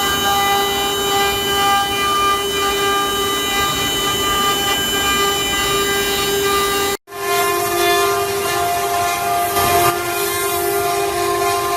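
CNC router spindle running at high speed: a steady whine with a string of overtones. It cuts out for an instant about seven seconds in, then resumes at a slightly lower pitch.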